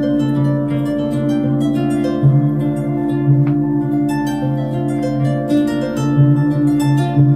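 Kora plucked in a flowing melody of short notes over the steady, sustained drone of crystal singing bowls.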